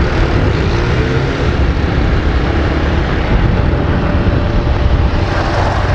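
Honda CG Fan 160's air-cooled single-cylinder engine running under way, mixed with steady wind rush on the microphone. The rider says the engine has a noise that is not normal, as if something were knocking.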